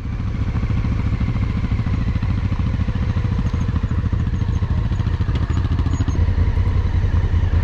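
Adventure motorcycle engine running steadily under way, a low even pulsing of its firing strokes.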